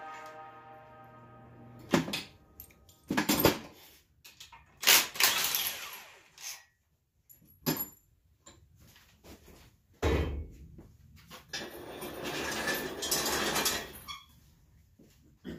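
Scattered knocks, clanks and scraping of parts and tools being handled at a small-block Chevy engine block hanging from an engine hoist, with a heavy thud about ten seconds in. Background music fades out in the first second.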